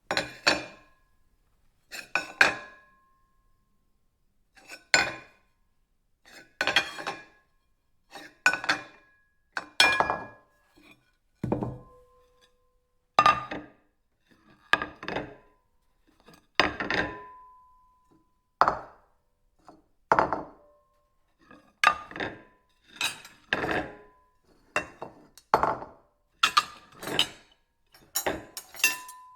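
Ceramic plates clinking and knocking as they are handled, one short clatter every second or two, some leaving a brief ringing tone. The clatters come closer together near the end.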